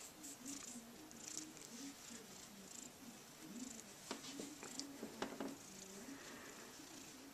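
A Maine Coon cat purring softly and continuously while being stroked, with a few short clicks and rustles about four to five seconds in as it is scratched.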